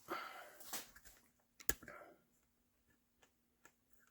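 Light handling noises: a soft rustle and a few small clicks, with one sharper click a little under two seconds in. After that it is almost silent, with only a faint steady hum underneath.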